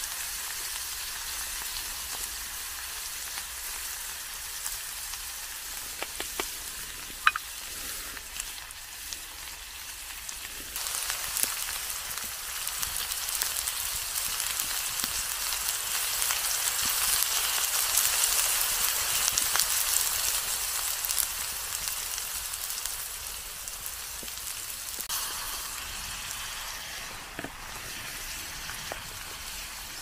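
Food frying in a pan: a steady sizzle that swells louder about a third of the way in and eases off near the end, with a few light clicks about six to seven seconds in.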